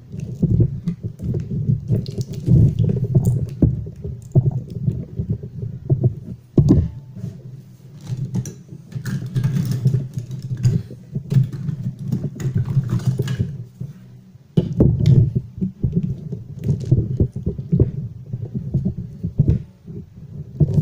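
Handling noises from a Volvo electronic throttle module as its plastic cover is worked open: many small clicks, taps and scrapes over a low rumble, with brief pauses.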